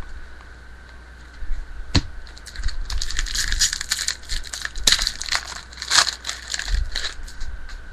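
A trading card pack's wrapper crinkling and crackling as it is torn open and handled, with a sharp snap about two seconds in.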